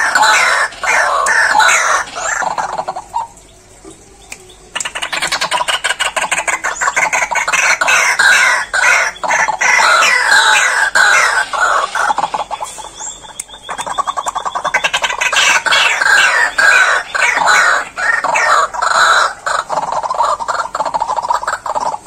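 White-breasted waterhens calling loudly and shrilly in fast repeated notes, breaking off twice for a second or two. They are calling in response to a person coming up to their cage.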